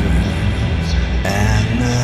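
Music from a slow song: a steady low bass under held tones, with a new wavering sustained note coming in a little past halfway.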